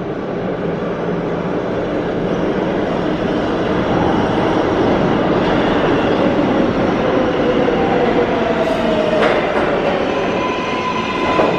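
R188 subway train on the 7 line pulling into an underground station, a steady rumble of wheels on rail that grows slightly louder as it approaches. A whine rises in pitch partway through, and a high steady squeal sets in near the end as the train comes into the platform.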